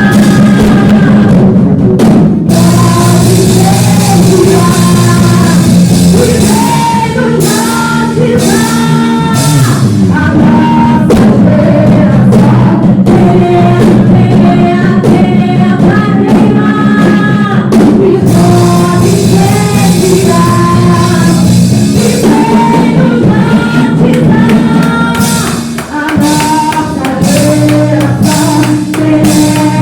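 A church worship band playing, with singing over sustained keyboard-like chords and a drum kit; loud and continuous, with a brief drop in level near the end.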